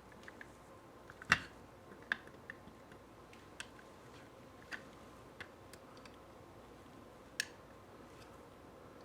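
Sparse light clicks and taps of small die-cast toy truck parts being handled on a workbench, about six spread over several seconds, the sharpest a little over a second in.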